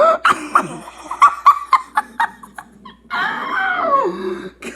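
A kid laughing hard: a run of short, choppy bursts of laughter, then a long squealing laugh that falls in pitch.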